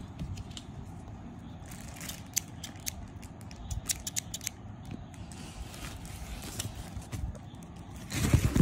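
Hairdressing scissors being handled: scattered light clicks and handling noise, then a louder rustle and knock near the end as they are set down on paper.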